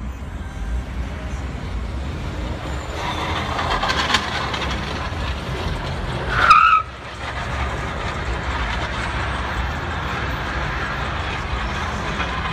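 Steady road and wind noise from a vehicle moving through traffic, growing rougher about three seconds in. About six and a half seconds in comes a short, loud, high-pitched screech that cuts off suddenly.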